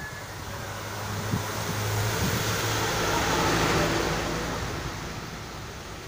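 A road vehicle passes, its engine hum and tyre noise swelling over a couple of seconds and fading again, over a steady hiss of falling rain.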